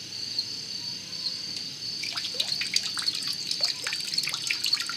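Water dripping and trickling into a bucket of water, getting busier about two seconds in, as water is blown through the tubes of a pop-can putt-putt boat engine to prime it. Crickets chirp steadily behind.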